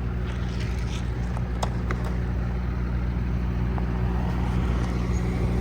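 Diesel engine running steadily at an even low pitch, slowly getting louder. By ear it is taken for a 6.5 Detroit diesel, though without certainty.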